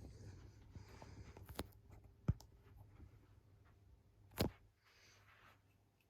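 Mistral ceiling fan running on its low speed as it spins up, a faint steady hum. Three sharp clicks cut through it, the loudest about two and four and a half seconds in.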